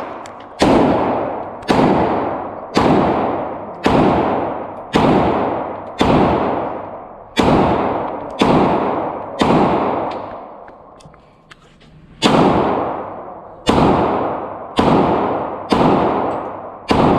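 Handgun firing at a shooting range, steady single shots about one a second, each ringing out with a long echoing tail. The shooting pauses for about two seconds past the middle, then resumes at the same pace.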